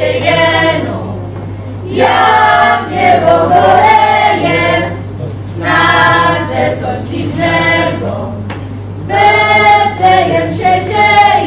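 A group of voices singing a Christmas carol in phrases of about two seconds with short breaks between them, over a steady low hum.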